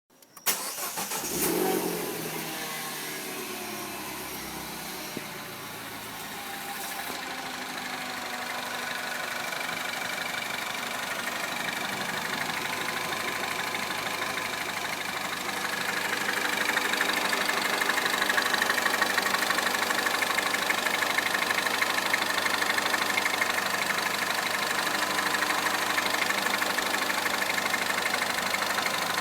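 Citroën DS3 Racing's turbocharged 1.6-litre four-cylinder starting up, flaring briefly in the first couple of seconds, then settling into a steady idle. The idle gets somewhat louder about halfway through.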